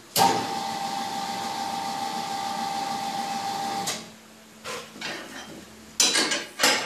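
Tyre changer machine running for about four seconds with a steady motor whine as its turntable turns the wheel, then stopping. Near the end come two loud, short clatters as the tyre lever is worked on the bead.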